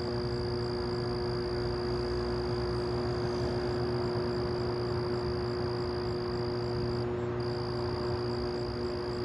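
A steady humming drone of unknown origin that seems to come from everywhere at once, with a steady high whine above it that drops out briefly about seven seconds in.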